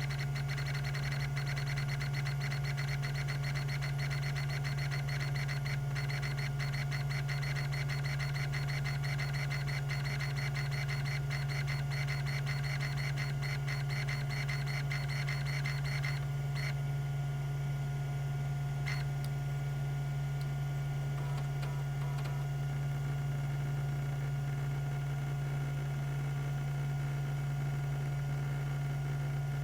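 Tandon TM362 hard drive's stepper-motor head actuator seeking, a rapid, continuous ticking chatter over the steady hum of the 3600 RPM spindle. The seeking stops about two-thirds of the way through, leaving the spindle hum and a few single clicks.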